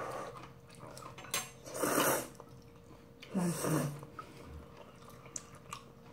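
Ramyeon noodles being slurped from a bowl of soup with chopsticks: two loud slurps about two seconds in and again about three and a half seconds in, with a few light clicks of chopsticks against the bowls.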